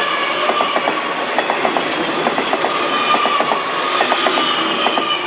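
Taiwan Railways Tze-Chiang express train passing close by: its wheels knock over the rail joints in repeating clusters about once a second, over a steady rushing run and a steady high-pitched tone.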